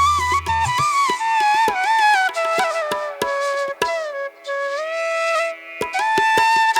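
Background music: a flute melody with sliding, ornamented notes. A low drum beat drops out after about the first second.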